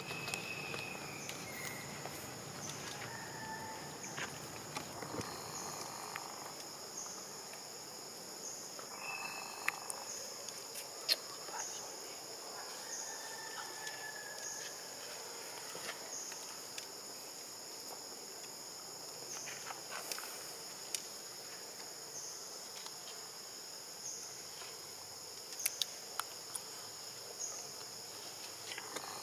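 Steady high-pitched insect chorus, pulsing about once a second, with a few short high calls and some soft clicks.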